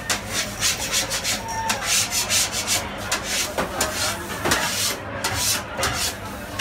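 Rapid, repeated scraping and rubbing strokes on a floured stone counter as pizza dough and a metal peel are worked, a few strokes each second.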